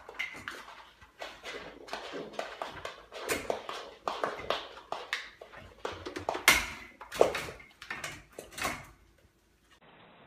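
Young goat jumping and pawing at a metal baby gate: irregular knocks and rattles of the gate, several a second, which stop about nine seconds in.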